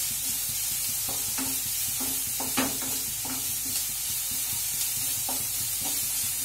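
Chopped onions sizzling in hot oil in a non-stick kadhai, with a steady hiss, while a wooden spatula stirs them in irregular light scrapes and knocks against the pan. The onions are being sautéed so that their water cooks off and they soften.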